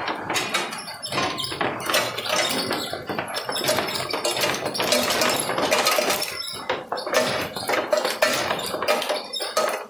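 Oyster shells clattering as they slide off a conveyor and tumble down a stainless-steel chute into a mesh bag: a dense, continuous run of clinks and knocks.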